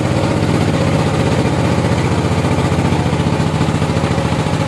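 An engine running steadily at idle, with a fast, even firing beat and no change in speed.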